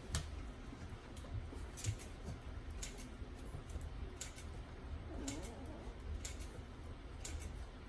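Scattered light clicks and taps of puppies' claws on a hardwood floor and a plastic slide as they play, irregular and a second or so apart, over a low steady hum.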